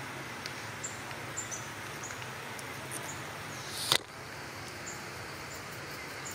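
Outdoor ambience: a steady hiss with short high chirps of small wildlife repeating every second or so. About four seconds in, a brief loud rushing swell cuts off abruptly.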